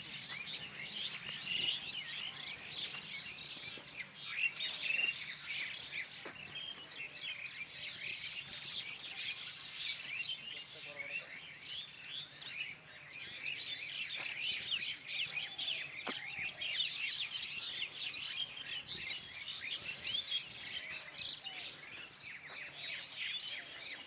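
A chorus of many small birds chirping at once: a continuous tangle of short, high notes with no pause.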